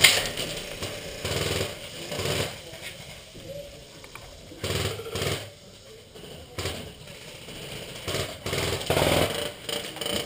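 Several short bursts of fire from a KWA M16 airsoft electric rifle, with pauses of one to two seconds between them.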